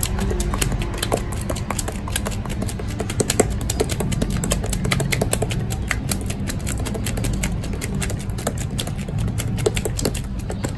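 Wet squelching and crackling of hands working shampoo lather through long wet hair, dense quick clicks over a steady low hum.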